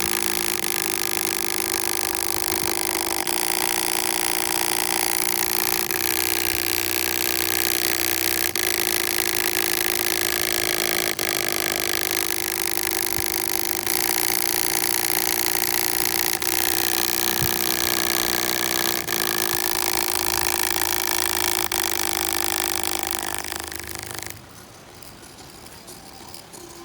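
A loud, steady mechanical running noise with several held tones, like a motor; it falls away sharply about 24 seconds in.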